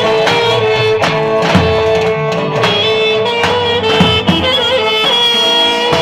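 Live Roman havası dance music: a clarinet playing a held, wavering melody over uneven beats of a large davul drum.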